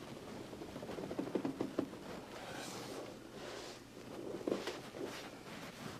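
Faint rustling and shuffling of clothing and bodies shifting during an assisted chiropractic stretch, with a cluster of soft taps about a second in and another near four and a half seconds.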